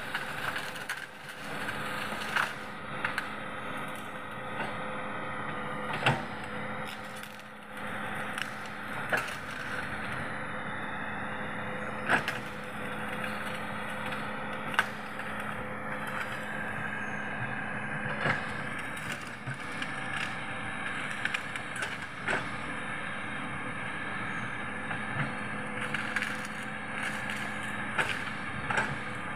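Large Hitachi 210F hydraulic excavator's diesel engine running steadily under load while it knocks down trees, with repeated sharp cracks and splintering of breaking wood, a crunch the operator likens to eating crackers.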